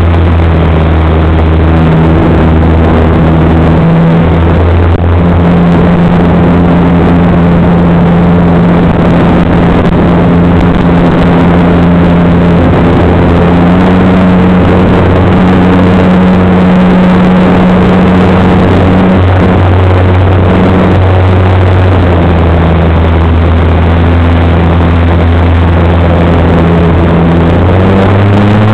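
Onboard sound of a radio-controlled model airplane in flight: the motor and propeller drone loudly and steadily under heavy wind rush on the microphone. The pitch shifts with the throttle several times and rises near the end.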